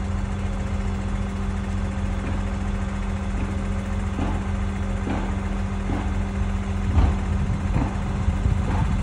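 Mobile crane's diesel engine running at a steady speed, a constant hum with a few faint knocks and one louder knock about seven seconds in.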